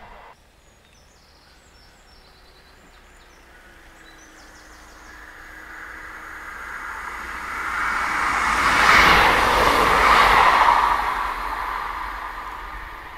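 A two-car diesel multiple unit passing through the station at speed. Its wheel and engine noise builds as it approaches, is loudest about nine to ten seconds in as it goes by, then fades as it moves away.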